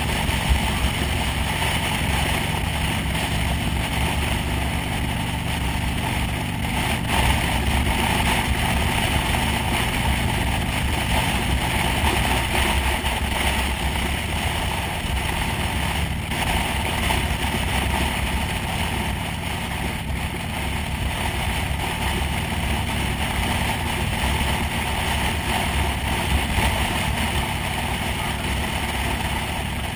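Motorcycle engine running steadily at cruising speed, with wind and road noise rushing over the microphone.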